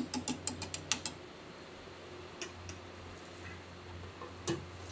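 Metal spoon clattering against a wire fry basket full of shrimp in a deep fryer: a quick run of about eight sharp metallic clicks in the first second, then a few scattered clicks, one louder near the end, over a low steady hum.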